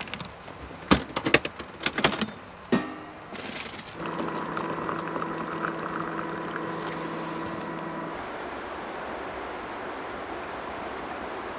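Sharp clicks and knocks of gear being handled at a vehicle tailboard kitchen, one with a short metallic ring. Then a hot drink is poured from a vacuum flask into a stainless steel cup, a steady pouring hiss with a few held tones that cuts off about eight seconds in, leaving an even background hiss.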